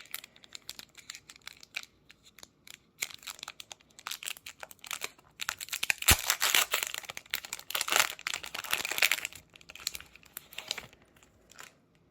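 Foil Pokémon TCG booster pack wrapper crinkling and being torn open: a dense run of crackles, busiest in the middle, that dies away near the end.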